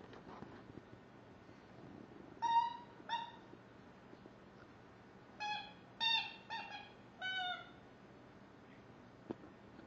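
Angry Birds Pig General rubber squeaky chew toy squeaked by a puppy's bites: two short squeaks, then about five more in quick succession a couple of seconds later.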